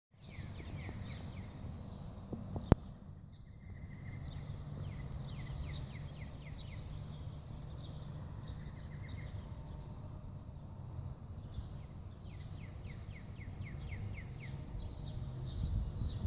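Outdoor ambience: birds singing in repeated runs of quick descending chirps over a low steady rumble, with one sharp click about three seconds in.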